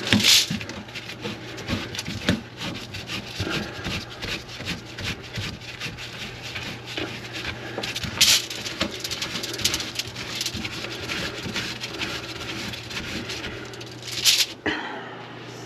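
Drain-cleaning machine running, its spinning cable scraping and knocking as it punches through a grease clog in a kitchen sink drain line. A steady motor hum sits under the scraping and stops near the end.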